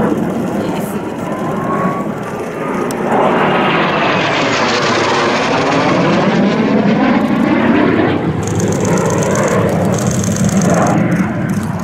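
Jet noise of a Kawasaki T-4 trainer's twin turbofan engines as it dives in and passes close. The noise swells about three seconds in and stays loud, with a sweeping, phasing rush as the jet goes by.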